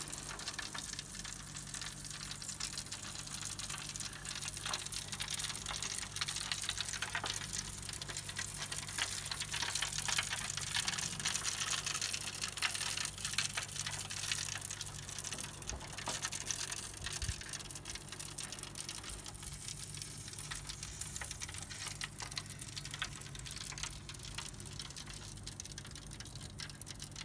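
Fat and juices sizzling and crackling on hot charcoal under a rotisserie chicken in a charcoal kettle grill: a steady hiss with many small crackles, over a steady low hum.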